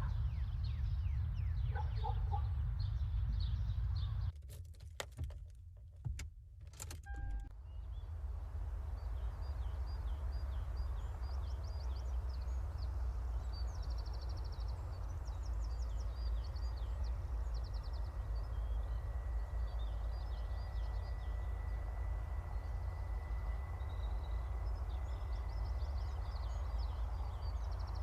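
Outdoor ambience: a steady low rumble with many small birds chirping over it. About four seconds in the rumble drops away for a few seconds, with a few sharp clicks, then returns.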